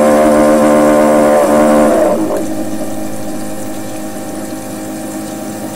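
Keurig coffee brewer giving off a loud, low, foghorn-like drone for about two seconds. It then drops to a quieter steady hum that carries on.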